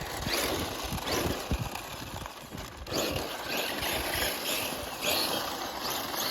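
Remote-control car driving on the ground, with irregular knocking and rattling.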